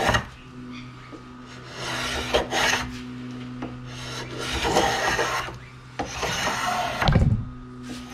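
Hand planing of Huon Pine: three long scraping strokes of a blade shaving the wood, about two and a half seconds apart, with a knock of the tool on the bench near the end.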